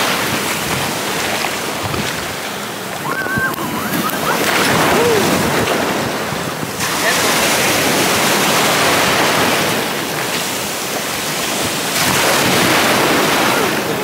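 Ocean surf washing in over the shallows, a steady rush of breaking water that swells and eases every few seconds.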